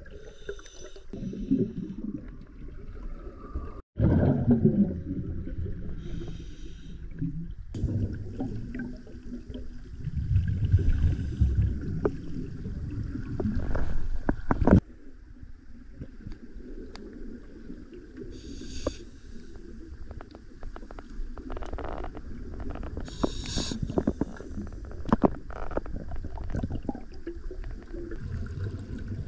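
Scuba diver breathing through a regulator underwater: low rumbling exhaust-bubble bursts and hissing breaths, heard through an underwater camera housing. The sound changes abruptly a few times.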